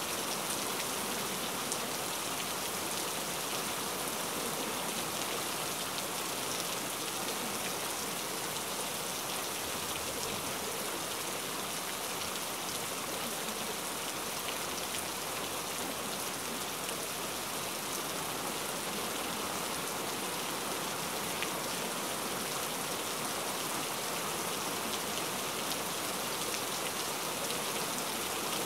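Steady rain: an even hiss with faint scattered drop ticks, unchanging throughout.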